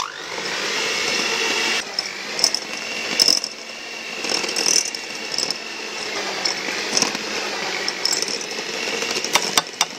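Electric hand mixer running, its beaters churning minced beef and tapioca flour into bakso meatball paste. The motor starts at once and runs steadily, a little louder for the first two seconds, with sharp clicks now and then.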